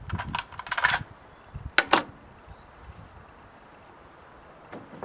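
Metallic clicks and clatter of a Ruger Ranch Rifle being handled after firing: a quick rattle of clicks in the first second, then two sharp clacks about a quarter second apart.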